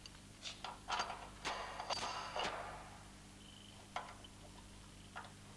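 Light metallic clicks and clinks of fittings and tools being handled on a vehicle straightening bench, several with a brief high ring. They come quickly one after another in the first couple of seconds and a few more follow later, over a faint steady hum.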